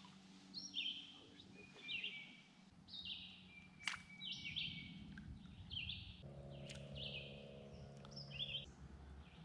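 Birds chirping in short, high, repeated notes, one or two a second, over quiet outdoor ambience. A single sharp tick comes near the middle, and a faint low hum runs for a couple of seconds near the end.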